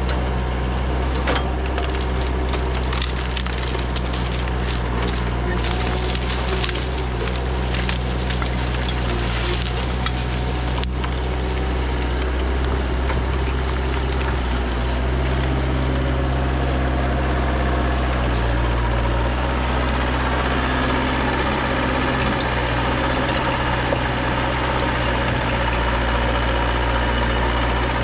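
Kubota KH-040 mini excavator's diesel engine running steadily while the bucket and thumb grab and crush dry brush. Branches crackle and snap for the first ten seconds or so.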